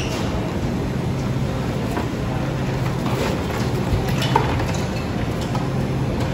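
Steady food-court room noise with a constant low hum, and a few faint clicks and knocks.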